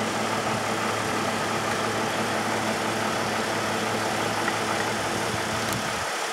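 Large engine idling steadily, a constant low hum under a wash of noise; the low part of the hum drops away near the end.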